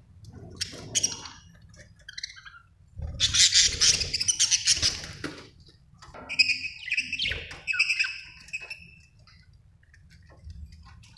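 Budgerigars chirping and chattering in irregular bursts, densest and loudest a few seconds in, then clearer separate chirps with a few falling notes, dying down near the end.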